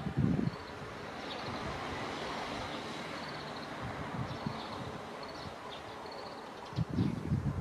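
Eurasian wryneck calling faintly, a short run of quick repeated high notes about three seconds in and a few more a second or two later, over a steady background hiss. Low rumbles at the start and near the end are louder than the bird.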